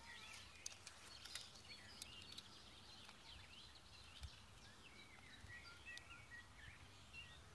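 Faint birdsong: small birds chirping and twittering in short whistled notes, with a run of repeated short notes about midway, over quiet outdoor background noise and a few soft clicks in the first second or so.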